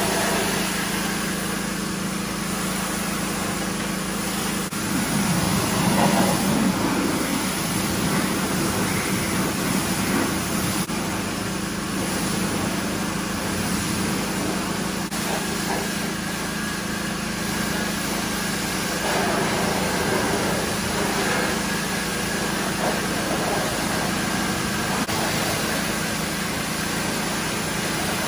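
A small engine runs steadily at constant speed, with the hiss of a pressure washer's water jet spraying a car's body and wheels.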